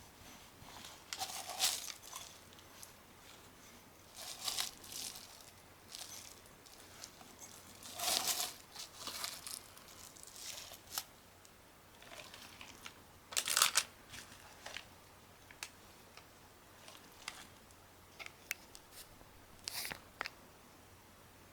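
Glass wool and stainless-steel scrubber pads being pulled apart and wrapped by hand around a muffler baffle: irregular bursts of crinkling and tearing a few seconds apart, with small scratchy rustles between them.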